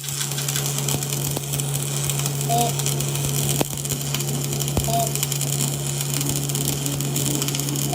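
Steady low machine hum with a hiss above it, broken by a few sharp clicks.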